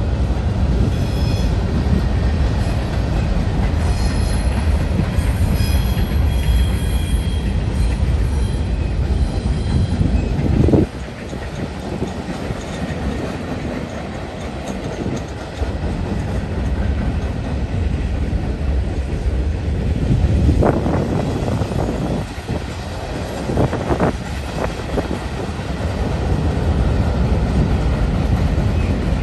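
Freight cars of a long manifest train rolling past: a steady rumble and clatter of steel wheels on rail. A thin high-pitched wheel squeal runs through the first third, and a few louder clunks come near the middle and later on.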